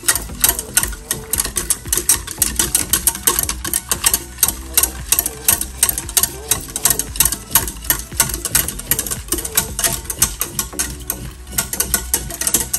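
Wire whisk beating a thin milky liquid in a stainless steel saucepan, its tines clicking rapidly and steadily against the metal sides.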